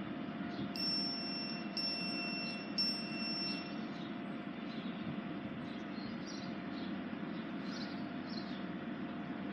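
Class 175 diesel multiple unit running steadily while it stands at the station platform. About a second in come three short high-pitched beeps, a second apart, over a longer lower tone.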